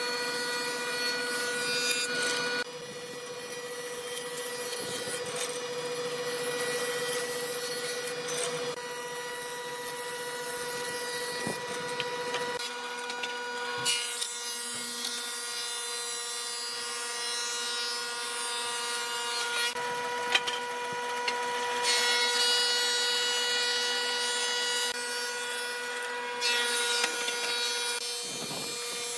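Combination jointer and thickness planer running with a steady whine, its cutterhead planing wooden boards with a hiss of cutting. The sound of the cut changes abruptly several times as different boards go through.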